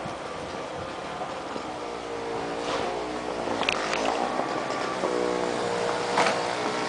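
A vehicle engine running, its pitch rising and falling from about two seconds in and then holding steady. A few short scrapes are heard, the last near the end, as a snow shovel works.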